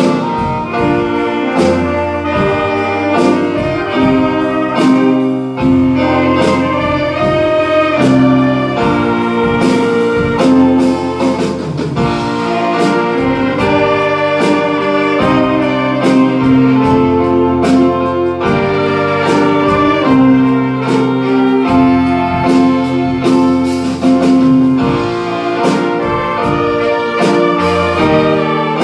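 Saxophone ensemble playing a slow melody in long held notes over a steady beat.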